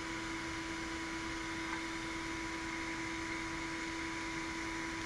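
Steady room hum and hiss with two constant tones, and one faint click about two seconds in.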